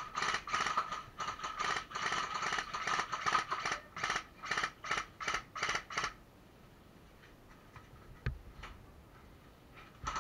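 Airsoft electric rifle firing rapid bursts, the gearbox whirring and clattering with each burst, for about six seconds before it stops. A single sharp knock follows about two seconds later.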